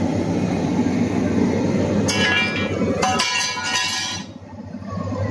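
Khoya-making machine running with a steady low hum, joined about 2 s in by ringing metallic clinks; the hum drops away about 3 s in and comes back near the end.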